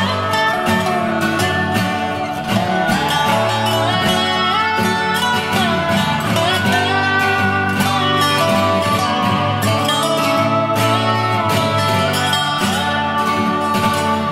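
Background music led by guitar, with a steady beat and gliding notes.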